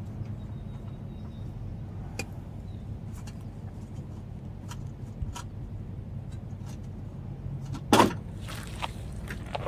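Scattered light clicks of hand tools working under the car, with one sharp clunk about eight seconds in, over a steady low hum.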